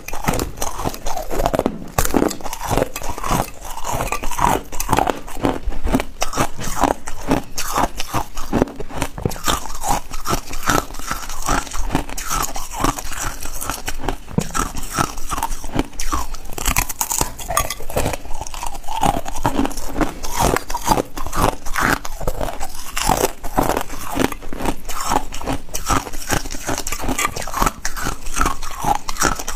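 Ice being bitten and chewed close to the microphone: loud, dense, unbroken crunching and crackling.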